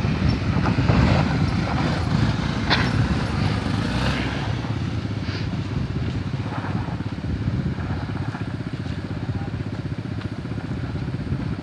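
Vehicle engines running close by on a steep rutted dirt slope. A motorcycle engine is loudest at first as it rides up past, then a steadier engine drone follows as a Honda SUV crawls up the slope.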